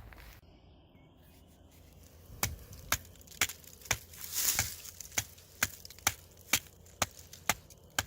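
Small axe chopping wood: a run of sharp, evenly spaced strikes about two a second, starting a couple of seconds in, with a brief swishing rustle midway.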